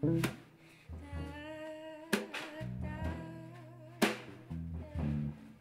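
Live music: a multi-string electric bass playing a melodic line with low held notes, accompanied by drums whose sharp hits land about every two seconds.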